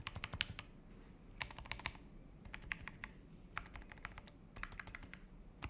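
Stock, unmodified 81 Pro mechanical keyboard being typed on: runs of quick keystroke clacks broken by short pauses about once a second.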